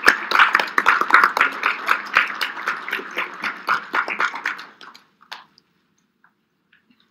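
Applause from the people in the room, many hands clapping, dying away about five seconds in and leaving near silence.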